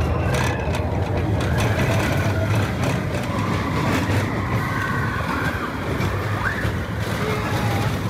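Expedition Everest roller coaster train rolling backward on its steel track: a steady low rumble of the wheels with rattling clatter throughout.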